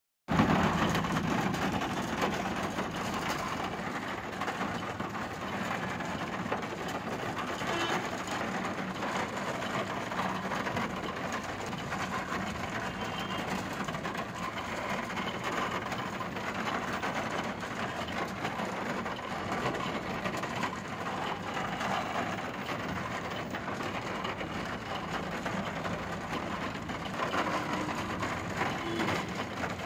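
Steady wash of traffic noise from vehicles moving through standing floodwater on a wet road: tyres hissing through water and engines running.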